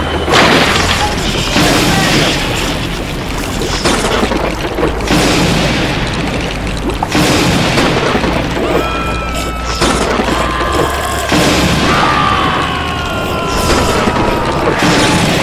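Storm sound effects: steady heavy rain with several booms of thunder, over background music.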